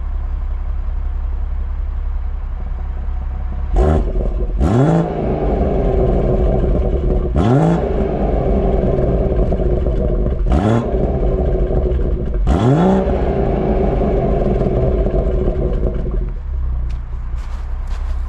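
BMW M140i's turbocharged 3.0-litre straight-six, fitted with an aftermarket downpipe, heard at the exhaust in Sport Plus mode. It idles, then is blipped sharply about five times, each rev rising and falling quickly, and it settles back to idle near the end.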